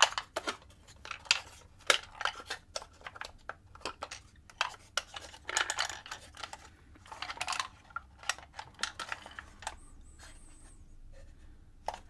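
Laser-cut plywood puzzle box being handled and turned over: irregular wooden clicks, knocks and rattles from its loose and sliding parts, with some light rubbing.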